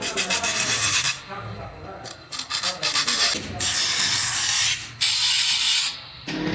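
Metal being filed or rasped by hand: four scraping strokes of about a second each, with short pauses between them.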